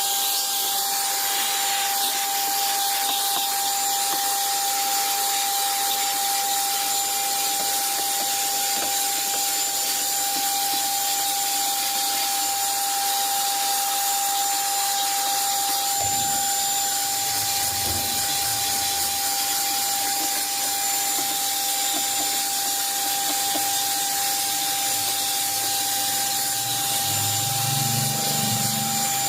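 Vacuum cleaner running steadily with a constant whine, and a few soft low bumps in the second half.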